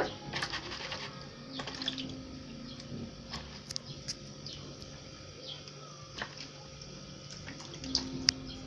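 Fresh peppers being washed by hand in water, with light splashing and small clicks of handling. A sharp knock sounds right at the start.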